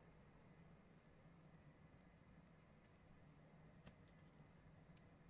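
Near silence: faint soft clicks and slides of baseball trading cards being flipped through by hand, one a little louder about four seconds in, over a low steady hum.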